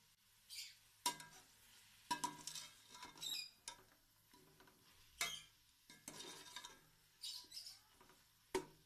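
Faint scrapes and knocks of a metal spoon stirring and frying beef pieces in masala in an aluminium pot, with a few short high squeaks.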